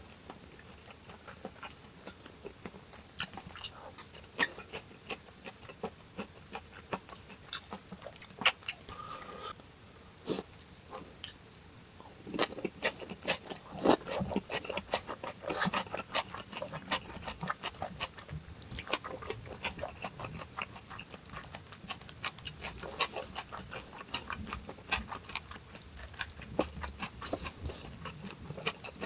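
Close-miked chewing of a person eating fermented skate samhap with boiled pork and kimchi: many small wet clicks and mouth smacks, denser and louder about halfway through.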